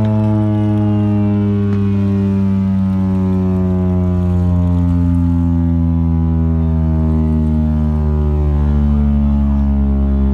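Chrysler Bell Victory air raid siren winding down, a loud deep chord of many tones gliding slowly and steadily lower in pitch.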